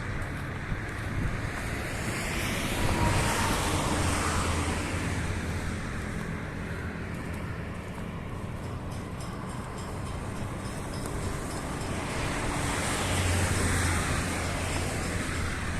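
Street traffic: vehicles pass twice, their tyre and engine noise swelling and fading about three seconds in and again near the end, over a steady hum of traffic, with wind noise on the microphone.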